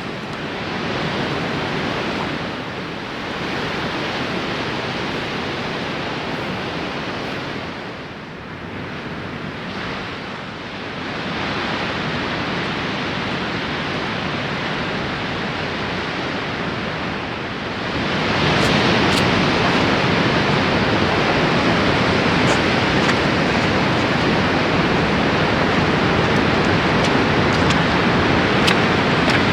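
Steady wash of ocean surf, a rough even rushing that gets louder about eighteen seconds in, with a few faint ticks in the second half.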